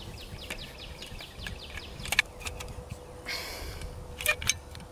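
Metal caulking gun being loaded with a tube of sealant by hand: a few sharp clicks and a short scrape as the tube is seated and the plunger rod is slid into place. High, rapidly repeated chirps from outdoor wildlife sound underneath.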